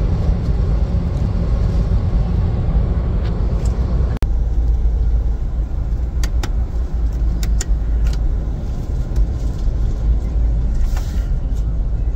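Steady low rumble of engine and road noise inside a car cabin cruising at highway speed, about 2,000 rpm and near 100 km/h, with a few light clicks in the middle.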